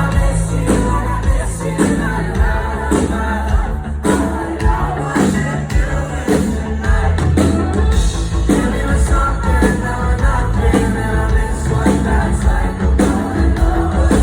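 Indie rock band playing, with a steady beat on the drums under a bass line.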